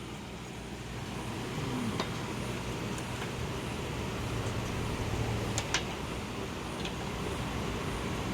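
Steady background rumble with a low hum, with a few faint light clicks of metal parts being handled as the mower deck pulley is set in place.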